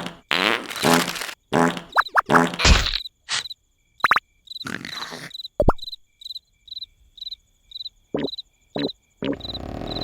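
Cartoon soundtrack: short comic character noises and sound effects, with a few sudden low thumps, over a steady background of cricket chirps, about two a second.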